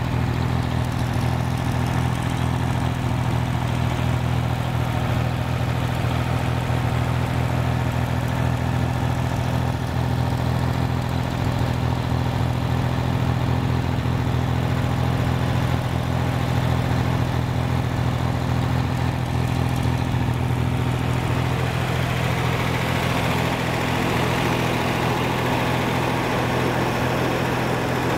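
Rebuilt Corvair 140 hp air-cooled flat-six running steadily at a fast idle, cold with the chokes on, exhausting through a single muffler.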